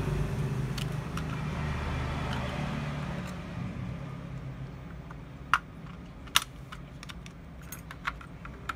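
A CPU being seated in a motherboard's LGA775 socket and the socket closed: a handful of light, sharp metal clicks from the socket's load plate and retention lever, the two loudest about five and a half and six and a half seconds in, over a steady low rumble.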